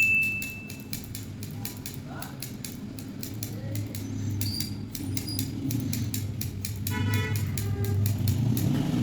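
Barber's scissors snipping hair in quick, uneven runs of sharp clicks, several a second.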